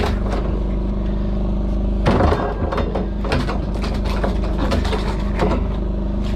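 Steady engine drone on the boat, with irregular knocks and clatter, the loudest about two seconds in, from an arrowed carp being handled in a plastic bucket.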